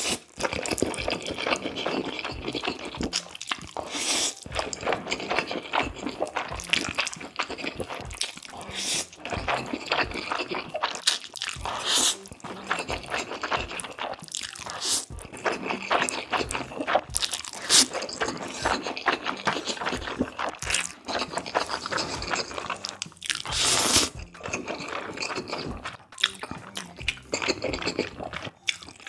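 Close-miked eating: a man slurping cold spicy bibim-myeon noodles mixed with raw beef yukhoe and chewing them, a steady stream of wet mouth clicks broken by several louder slurps.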